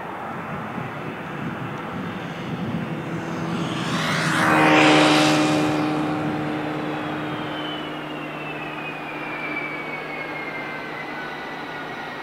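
Airbus A330-300 jet airliner with Pratt & Whitney PW4000 engines passing close overhead on approach to land. The jet noise swells to a peak about five seconds in and then fades, its engine whine dropping in pitch as it goes by.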